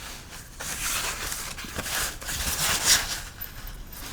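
Irregular scraping and rustling as car body parts and hardware are handled, with a louder scrape about three seconds in.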